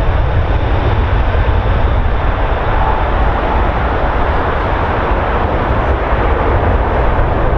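Twin jet engines of a Boeing 767 freighter at takeoff thrust as it rolls and lifts off: a loud, steady rush with a strong deep rumble.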